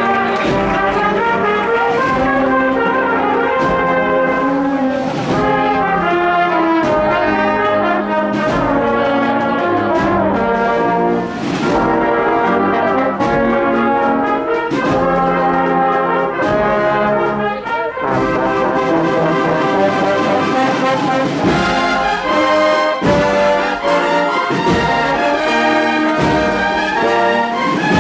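Andalusian Holy Week marching band (an agrupación musical) playing a processional march: trumpets and trombones carry the melody over a steady drum beat.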